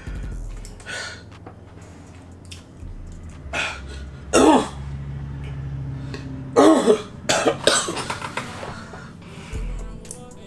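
A man coughing and clearing his throat in several fits, the hardest coughs about halfway through and a quick run of coughs about two-thirds through. The coughing is his reaction to the burn of the Paqui One Chip's super-hot pepper still burning in his mouth.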